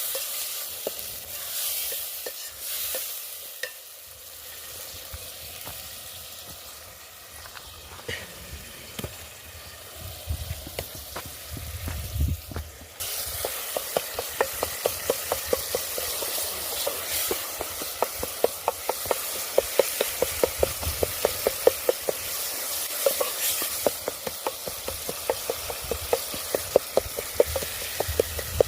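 Food frying and sizzling in a pot while being stirred. About halfway through the sizzle suddenly gets louder, and a spoon then knocks and scrapes against the pot in a quick steady rhythm, about three to four strokes a second.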